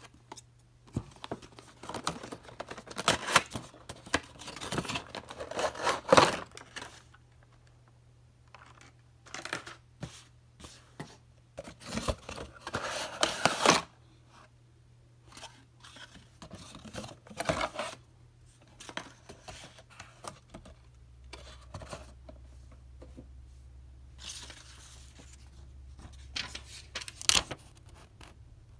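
Scissors cutting the tape seals on a cardboard toy box, then cardboard and paper packaging being torn, pulled open and handled in irregular bursts of tearing, rustling and scraping. The loudest stretches come a few seconds in and again about halfway through.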